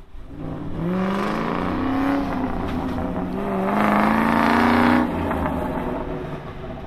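2003 Ford Mustang Mach 1's 4.6-litre V8 through an aftermarket X-pipe exhaust, accelerating hard: the engine pitch climbs twice, loudest about four to five seconds in, then falls away abruptly as the driver lifts off the throttle.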